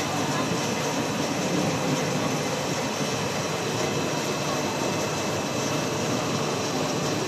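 Cast stretch film production line running at speed: a steady, even mechanical noise from its rollers, motors and winder, with a faint high whine held throughout.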